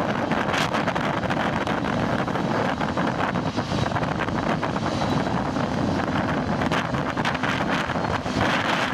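Strong wind buffeting the microphone over the steady roar of a Boeing 787-8 Dreamliner's jet engines at takeoff thrust, with a faint high whine running through it.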